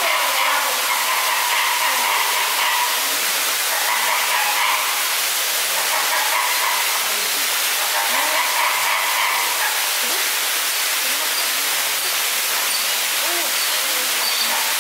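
Steady rushing hiss of falling water from a water feature in the pond enclosure, at an even level throughout.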